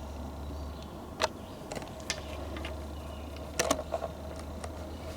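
Footsteps on the forest floor: a handful of irregular sharp twig snaps and leaf crunches, loudest about a second in and again past three and a half seconds, over a low steady rumble.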